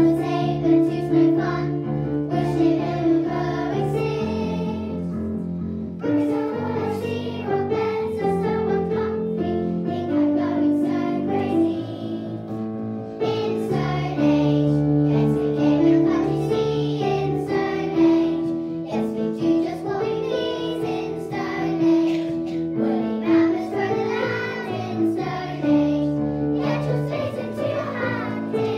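A group of young girls singing a song in unison over instrumental accompaniment, with short pauses between phrases.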